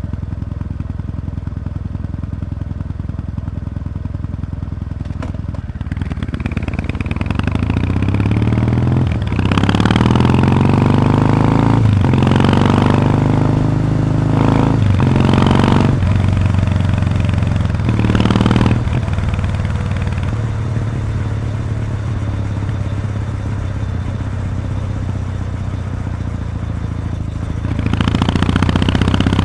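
Kawasaki W800's air-cooled parallel-twin running through its stock muffler with the silencer baffle removed. It runs low and steady for a few seconds, then accelerates through the gears with rising pitch, each climb cut by a brief dip at the shift. It settles into steady cruising and revs up again near the end.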